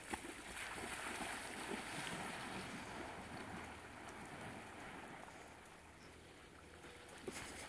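Faint splashing and sloshing of a person running and wading into lake water, loudest in the first few seconds and dying away as she sinks in to swim.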